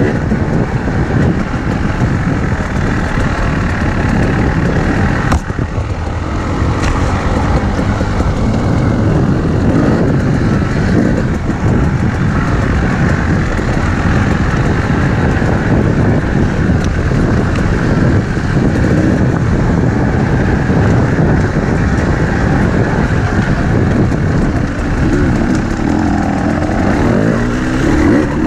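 Enduro motorcycle engine running on a rough dirt trail, its pitch rising and falling with the throttle. Heard close up from the rider's helmet.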